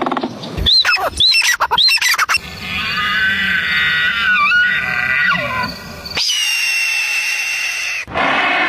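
A run of different wild animal calls, changing abruptly every few seconds: a few quick rising-and-falling whistles, then a longer call with several tones together, then a steady high note held for about two seconds.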